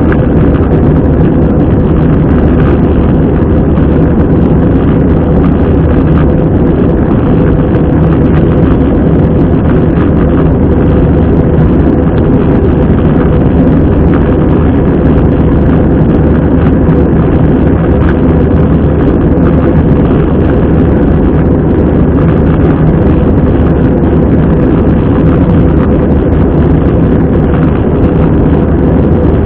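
Airbus A320 cabin noise in flight: a steady rush of airflow with the engines' even hum, including a steady mid-pitched tone, unchanging throughout.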